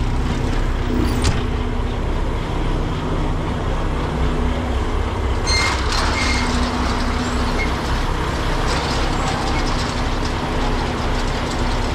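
A heavy diesel engine running steadily with a low rumble and a hum, and a few sharp metallic knocks over it: one about a second in, one about halfway through with a brief ring, and one later.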